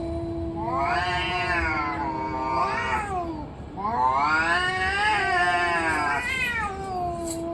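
Cats yowling in a fight standoff: long, drawn-out wails that rise and fall in pitch, swelling about a second in and again around four seconds in, over a low, steadily held note.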